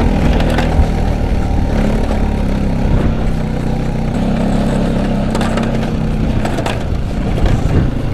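Small off-road vehicle engine running steadily under way, with a few brief knocks and rattles over it.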